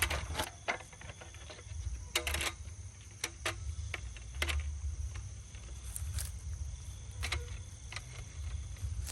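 Wind buffeting the microphone in an uneven low rumble, with scattered sharp clicks and knocks and a faint steady high-pitched whine behind it.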